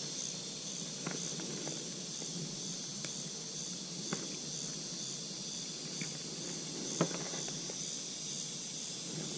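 A steady, high-pitched insect chorus in summer vegetation, with a few light clicks and one sharper knock about seven seconds in from handling fishing tackle.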